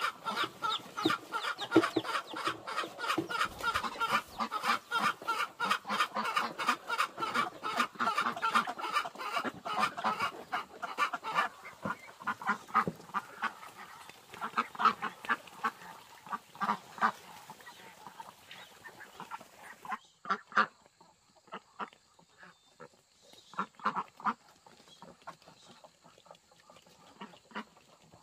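A flock of ducks and chickens calling: a dense, rapid run of short quacks and clucks that thins out about halfway through into scattered single calls.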